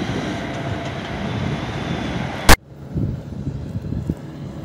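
A John Deere tractor pulling two loaded grain trailers drives past, its diesel engine running steadily over tyre noise on the road. About halfway through, a sharp click as the sound cuts off. After it comes a quieter stretch of wind buffeting the microphone, with the tractor running in the distance.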